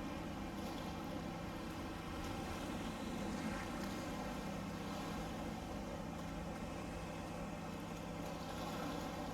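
Steady engine drone with a constant low hum and a wash of noise, unchanging throughout.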